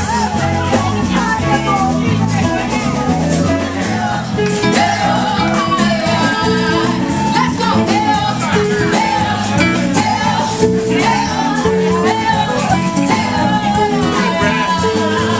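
Loud dance music with a singing voice over a steady beat.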